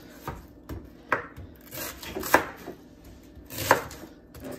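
Cabbage being chopped with a knife: four sharp chops roughly a second apart.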